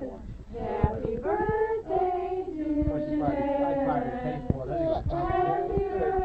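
Several voices singing together in long held notes, with a few sharp clicks over the singing.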